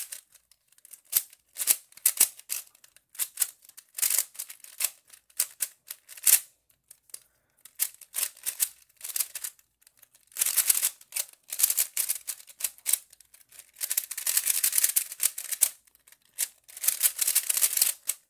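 Cyclone Boys Feiwu 3x3 speed cube turned quickly by hand in a solve: bursts of rapid plastic clicking with short pauses between them, longer and denser in the second half.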